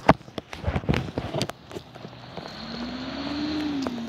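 Footsteps crunching on gravel, then a motor vehicle running on the street, its engine note rising and then falling slightly as it grows louder and cuts back near the end.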